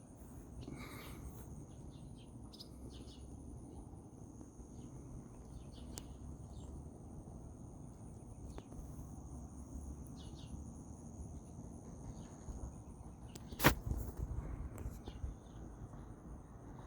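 Faint steady insect trill held on two high tones, with short bird chirps scattered throughout. A single sharp click sounds about three-quarters of the way through.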